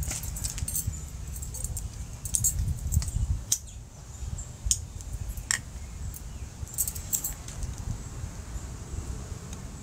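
Bangle bracelets jingling and clinking in short scattered bursts as the wearer moves close to the phone, over a low rumble on the microphone that eases off after about three and a half seconds.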